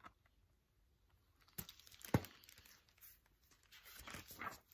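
Pages of a hardcover picture book being turned and handled: paper rustling and crinkling in two spells, with a sharp tap about two seconds in.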